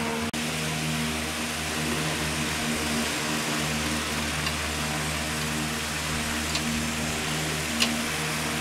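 A machine's engine or motor running at a steady speed, with a few faint clicks along the way.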